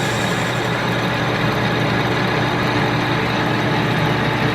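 Victor 1640 manual lathe running steadily, with the steady hum of the rotary phase converter that supplies its three-phase power from single-phase current.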